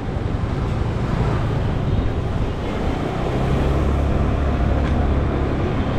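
Riding noise on a motorcycle: wind rushing over the microphone over a steady low engine drone.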